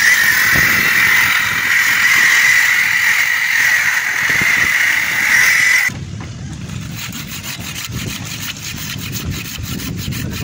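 Handheld electric circular saw cutting through a wooden plank: a loud, steady high whine that cuts off suddenly about six seconds in. A handsaw then rasps back and forth in the cut in quick, even strokes.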